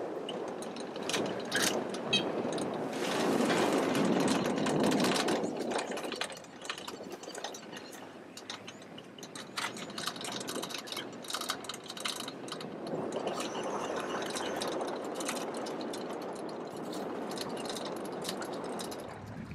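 Safari game-drive vehicle driving over rough ground, its engine running with a steady rumble, loudest a few seconds in. Many short clicks and rattles from the bouncing vehicle sound throughout.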